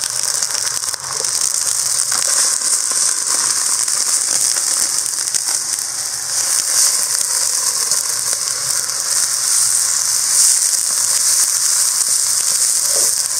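Sliced onions sizzling steadily in hot oil in a stainless steel wok, with crackles and the ladle scraping against the pan as they are stirred.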